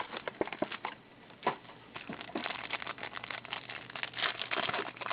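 A trading-card box and its packs being opened by hand: rustling and crinkling of wrapper and cardboard with many small clicks, busier in the second half.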